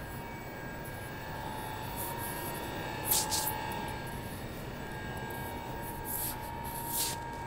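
Steady hum of a commuter train standing at an underground station platform, with a few short hisses, about three seconds in and twice near the end.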